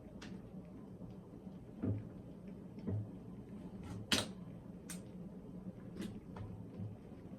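Scattered kitchen knocks and clicks, about five in all and the sharpest a little past four seconds in, over a steady low hum.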